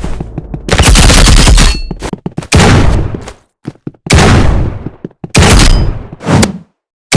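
A series of about five loud bangs, each trailing off over a second or so, with short gaps between them.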